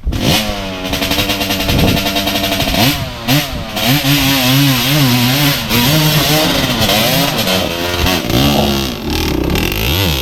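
Off-road motorcycle engine revving hard, its pitch rising and falling over and over as the throttle is worked to climb a slippery rocky section.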